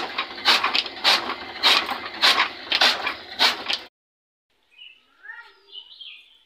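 A flywheel chaff cutter chopping green fodder: seven even, sharp chops, a little over half a second apart. They stop abruptly about four seconds in, and faint bird chirps follow.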